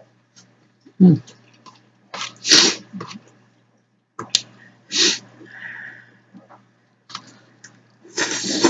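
A person's short, hissing breath noises, like sneezes or sharp sniffs: several separate bursts, the loudest about a second in and a longer one near the end.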